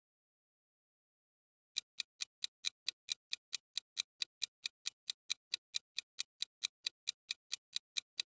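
Clock-tick countdown timer sound effect: a fast, even run of sharp, light ticks, about five or six a second, starting about two seconds in after a stretch of silence.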